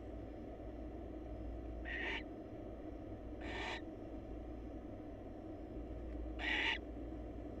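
Barn owl giving three short, raspy hissing calls a second or more apart, the last the loudest, over a steady low hum.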